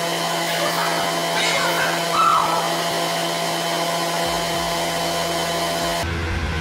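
Steady, whooshing machine noise like a blower or motor, with a faint steady hum, cutting off abruptly about six seconds in.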